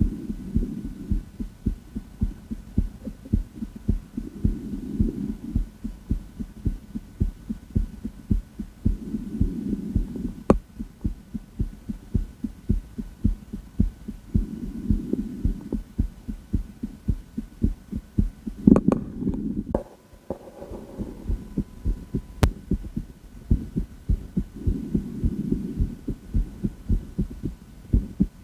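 A woman's heartbeat heard through a stethoscope, with steady, regular beats. Soft breath sounds swell roughly every five seconds. About 19 seconds in there is a brief, louder scraping rustle.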